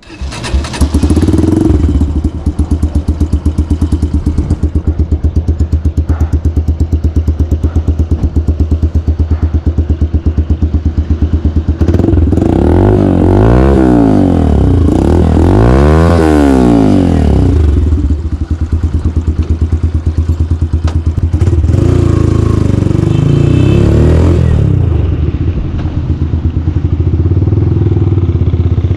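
Yamaha YBR 125's single-cylinder four-stroke engine through an aftermarket slip-on exhaust with its baffle (dB killer) removed: loud and bassy. It idles with an even pulsing beat, then is revved up and back down twice from about halfway through, and once more near the end.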